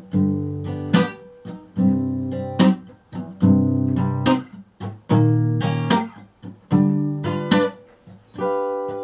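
Solo acoustic guitar playing the instrumental break of a slow blues ballad: chords struck with a sharp accent roughly every second and left to ring between strikes.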